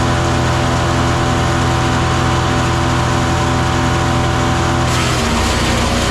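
Gas engine of a 7-inch wood chipper running steadily at speed. About five seconds in, a burst of chipping noise comes as the engine pitch sags briefly under load, then recovers.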